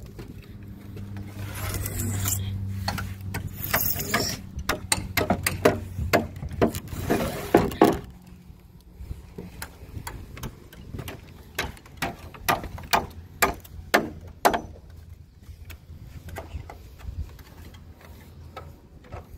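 Irregular clicks and knocks from timber-framing work on new roof rafters, loudest in two spells in the first half, over a steady low hum that fades out near the end.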